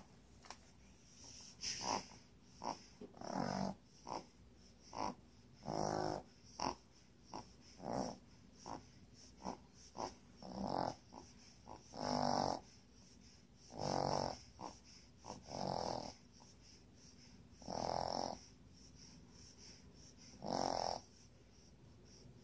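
A sleeping puppy snoring, with a snore on each breath about every two seconds and short, brief noises between the snores.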